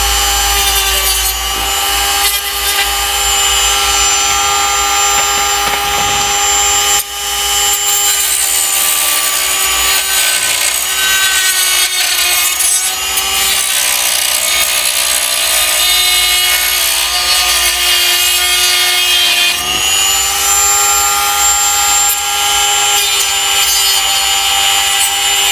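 RYU RDG 3.2 mini die grinder running at high speed with a small red disc, cutting and trimming hard plastic with a steady whine and a rasping scrape. The whine sags slightly in pitch under load for a few seconds, then picks back up about twenty seconds in. There is a brief dip in loudness about seven seconds in.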